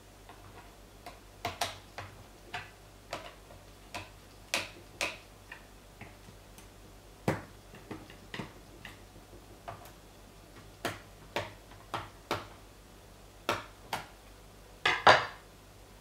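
Phillips screwdriver working the bottom-cover screws of a Lenovo ThinkPad L450: irregular light clicks and ticks of metal on screws and plastic, about twenty of them, with a louder short clatter near the end.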